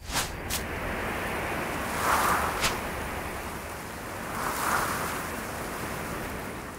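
Rushing, wind-like whoosh sound effects: a sharp swish at the start, another just after, and one more about two and a half seconds in, over a steady noise that swells twice.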